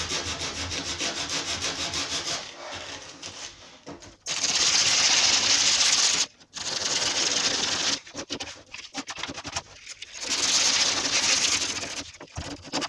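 Raw chipboard edge of a laminate worktop being hand-sanded with a green abrasive pad, knocking off loose chips: quick short rasping strokes at first, then longer steady strokes about four seconds and ten seconds in.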